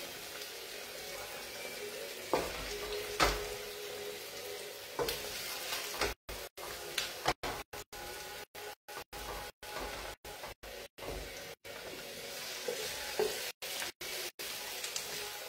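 Octopus and artichokes sizzling in a hot wok while a wooden spoon stirs and scrapes them, with a few sharp knocks of the spoon against the pan.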